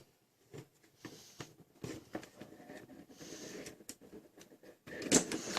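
Plastic parts of a Nerf blaster's opened shell being handled and fitted by hand: scattered small clicks and taps, with a louder cluster of clicks near the end as a catch spring and its part are worked into place.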